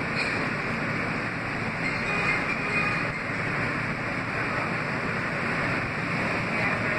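Steady running noise of a Kawasaki R160B subway car with Siemens propulsion, heard inside the car: an even rumble and rush of wheels on track at speed.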